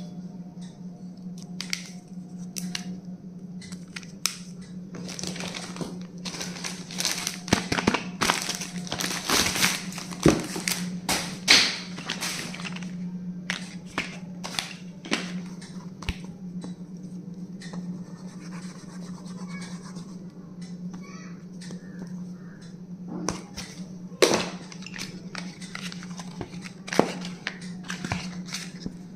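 Stationery packaging being handled and opened: plastic and paper crinkling and tearing with small knocks and clicks, busiest in the first half and again near the end, over a steady low hum.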